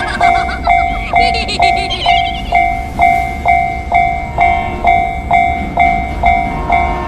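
Level-crossing warning bell ringing "kan-kan", about two even strokes a second, with train sounds over it in the first two or three seconds.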